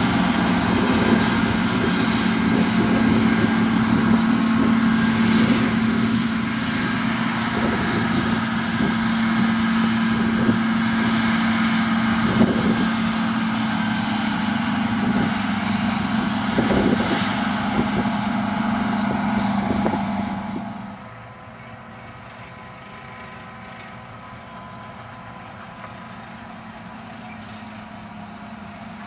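Self-propelled forage harvester chopping maize, its engine and chopper running with a steady low hum, alongside a tractor pulling the silage trailer. About two-thirds of the way through, the sound drops suddenly to quieter, more distant steady machine noise.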